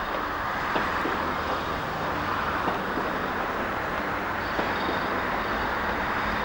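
Diesel train running with a steady mechanical noise and a few light clicks.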